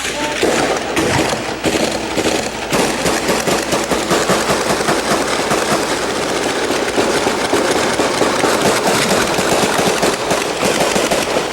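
Dense, continuous gunfire: many rapid shots and bursts crackling over one another without a break, starting abruptly.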